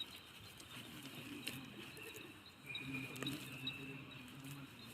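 Soft patting and squishing of bread dough being kneaded by hand, worked until smooth and elastic.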